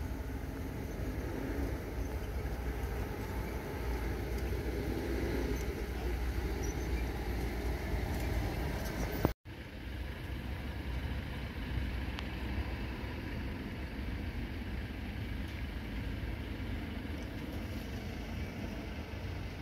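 Steady rumble of road traffic, with buses and cars moving on the station's access roads. About halfway through there is a sharp click and a moment of dead silence where the recording is cut, then the same rumble resumes.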